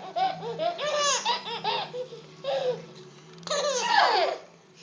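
Baby laughing in quick, high-pitched bursts of giggles. About three and a half seconds in comes a louder, high voice call that falls in pitch.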